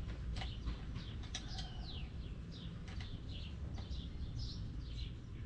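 Small birds chirping again and again in short, high, falling notes, over a steady low rumble, with a few sharp clicks.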